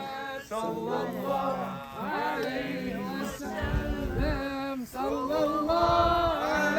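Unaccompanied male voice chanting a slow melody, with long held notes that slide between pitches.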